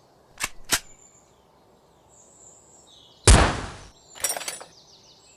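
Plastic toy blasters being handled: two sharp clicks, then about three seconds in a loud sudden burst of noise that dies away over most of a second, followed by a quick rattle of clicks.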